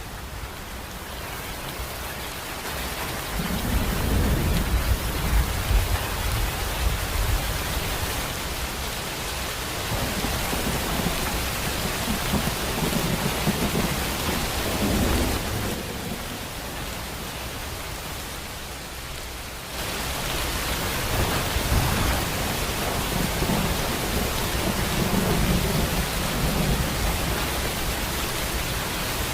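Steady heavy rain hissing on surfaces, with low rolls of thunder rumbling in and out several times. The rain's hiss thins for a few seconds and then comes back suddenly about two-thirds of the way through.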